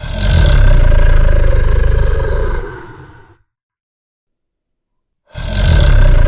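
Dragon fire-breath sound effect: a loud roaring blast that fades out after about three seconds, then a second identical blast starts near the end.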